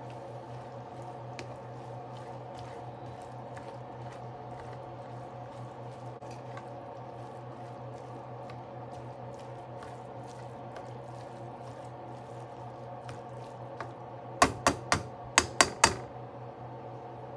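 Diced steak cooking in its own juices in a pan, a faint wet crackling and sizzling over a steady low hum. Near the end come six sharp knocks in quick succession.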